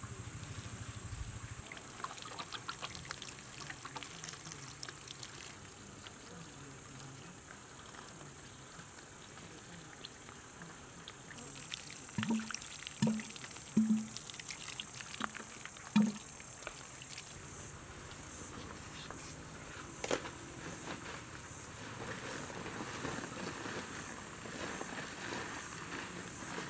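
A flying insect buzzing close in five short passes a little under halfway through, the loudest sound. Under it is a steady high hiss, with scattered light crunches and trickles of gravelly potting mix being handled and scooped into pots.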